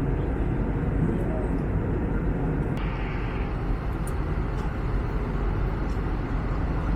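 Steady cabin roar inside an Airbus A321neo in cruise: airflow over the fuselage and engine noise heard from a passenger seat.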